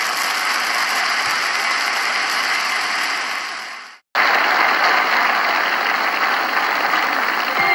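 An audience applauding. The applause fades out about four seconds in, breaks off completely for an instant, then starts again abruptly at full strength.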